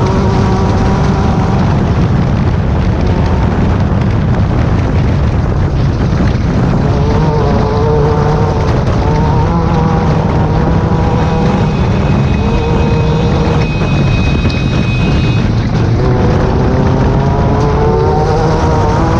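Engine of a Class 10 off-road race car running hard, its pitch rising and falling with throttle and gear changes over a heavy low rumble. A steady high whine joins for a few seconds in the middle.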